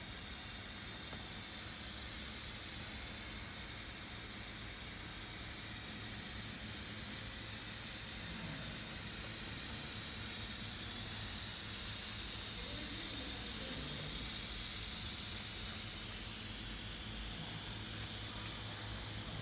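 Steady machinery noise in a pump factory: an even hiss with a low hum underneath, unchanging throughout.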